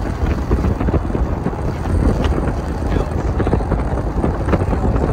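Strong wind buffeting the microphone: a loud, gusty rumble that rises and falls irregularly without letting up.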